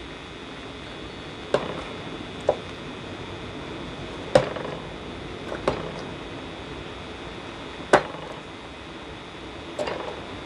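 Small hand carving tool cutting into a wooden netsuke figure: six sharp clicks of the blade, irregularly spaced a second or two apart, over a steady hiss.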